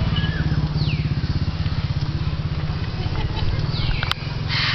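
An engine running at a steady idle, a low pulsing drone, with a few short high descending chirps over it and a sharp click near the end.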